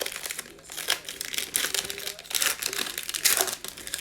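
Trading card pack wrapper crinkling and tearing as it is opened, in irregular crackly bursts.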